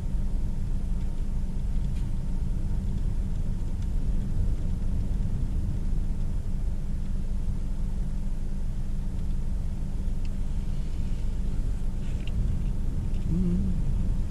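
Steady low rumble of storm wind and heavy surf, with no distinct separate crashes.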